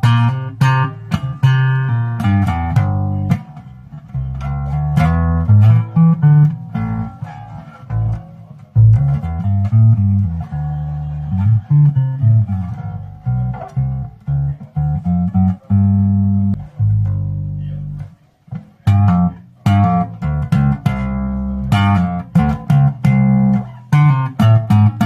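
Vester Precision-style electric bass guitar with a plywood body, played through an amplifier in a run of plucked notes with sharp, clicky attacks. The playing breaks off briefly about two thirds of the way through. The strings are old.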